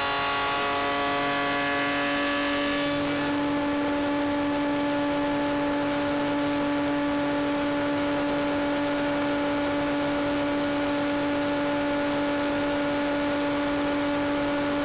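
A woodworking machine running at a steady speed with a fixed-pitch hum. The noise of it cutting through pine stops about three seconds in, and it then spins on free.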